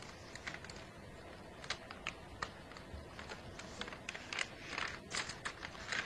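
Chinese calligraphy brush stroking across paper: faint, irregular scratchy brushing sounds that grow denser and louder toward the end.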